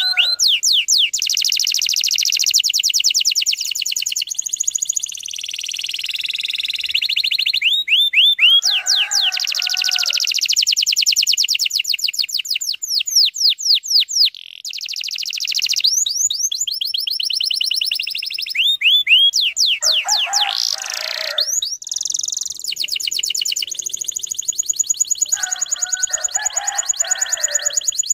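Domestic canary singing long, fast trills of rapidly repeated high notes, broken by short pauses, with a few lower phrases mixed in, around nine seconds, twenty seconds and near the end.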